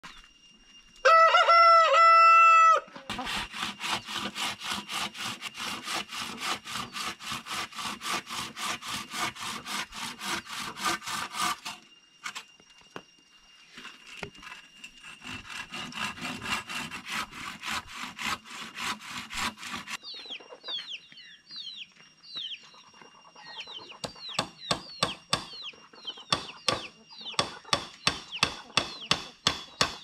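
A rooster crows once, loud, about a second in. It is followed by long runs of rapid, even strokes, like a hand saw cutting bamboo, and a few short falling bird chirps. Sharp knocks about two a second, like chopping or hammering, come near the end.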